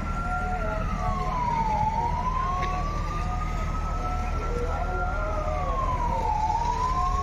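Emergency vehicle siren wailing. Its pitch climbs slowly and then drops quickly, twice, over a steady low rumble.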